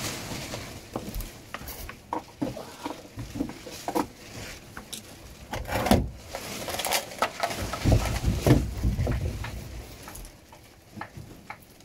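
Scattered clicks, knocks and rustling of hands handling cables and gear, with a low rumble about eight seconds in.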